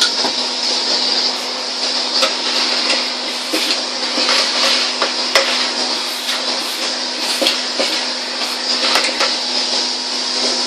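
Pink 1970s Hoover Constellation floating vacuum cleaner running steadily through its hose with a constant motor hum and a rushing hiss, with frequent short clicks and knocks. The owner says this one runs a bit ropey.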